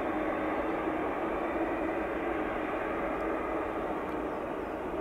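Boeing 787-9 Dreamliner's jet engines running, a steady rushing noise with a low hum that holds level throughout.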